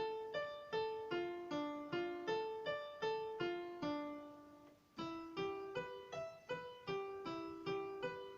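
Synthesizer keyboard on a piano voice playing a slow broken-chord arpeggio exercise in C major, one note at a time, about two to three notes a second. After a short break about five seconds in, the same pattern starts again a step higher.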